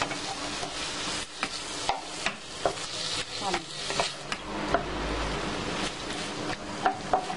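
Diced raw chicken breast sizzling in butter in a non-stick wok, with a wooden spatula scraping and knocking against the pan about every half second as it is stirred.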